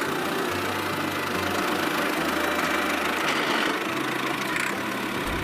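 A motor running steadily: a dense whirring noise over a low hum that shifts in level a few times.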